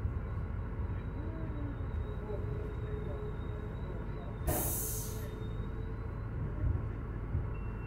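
A steady low rumble of idling vehicle engines, with one short, sharp hiss of compressed air released about four and a half seconds in.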